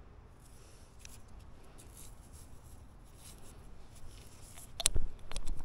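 Hands scraping and rustling through soil inside an earthenware pot, then a few sharp clicks and knocks about five seconds in.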